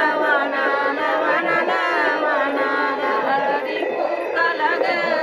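A group of women singing a wedding ritual song together, several voices overlapping.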